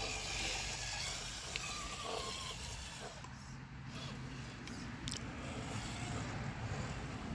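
Electric RC rock crawler driving over rough ground: a low motor and gear whir with a few sharp clicks and knocks from the tires and chassis on rock.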